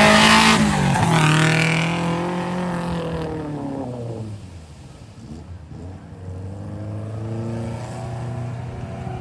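Off-road vehicle engine running hard under load, its pitch dropping and the sound fading over the first few seconds. A lower, steady engine note then builds again about six seconds in.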